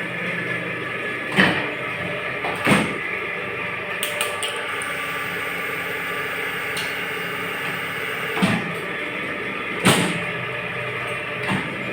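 Small moulding machine for gallon caps running with a steady hum, with several sharp clacks of the mould opening and closing, coming in pairs about a second and a half apart.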